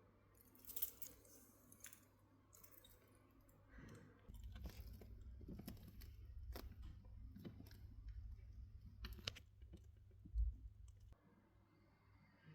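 Faint handling noise: scattered small clicks and light rustles with low bumps, the loudest a thump about ten seconds in.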